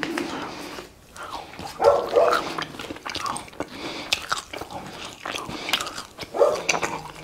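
Eating sounds: chewing and lip smacking on French fries. Two short pitched throat or mouth sounds come about two seconds in and again near the end.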